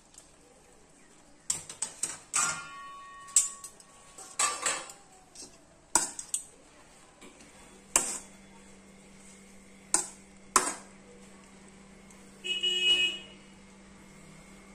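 A slotted cooking spatula knocking and scraping against a metal pot while spreading cooked rice, about a dozen sharp knocks, a few with a brief metallic ring. A short buzzy tone sounds near the end.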